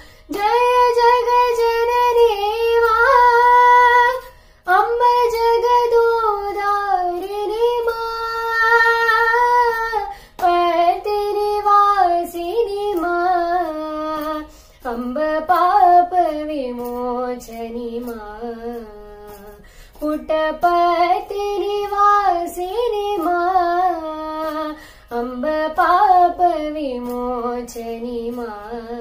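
A woman singing a Devi bhajan in raga Shivaranjani: one voice in long phrases of held, ornamented notes, each phrase breaking off after a few seconds.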